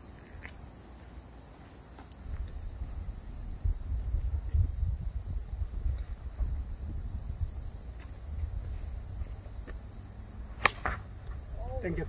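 Golf driver striking the ball off the tee: one sharp crack near the end. Under it, crickets chirp steadily at a high pitch and wind rumbles on the microphone.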